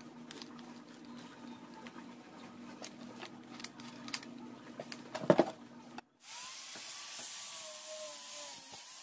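Small clicks and knocks of a sanding disc being fitted onto an angle grinder, with a louder rattle of knocks near the middle. Then, about six seconds in, the angle grinder runs with the sanding disc against a wooden board: a steady whine over a hiss, as the planed wood is smoothed.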